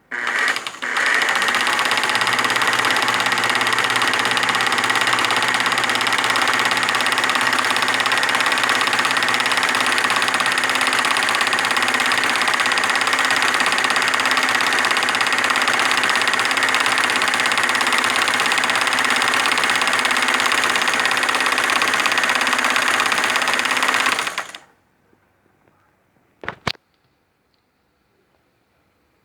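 Vintage Elgin Ultramatic sewing machine running steadily at speed, sewing a cam-driven decorative stitch; it stops near the end, and a single sharp click follows about two seconds later.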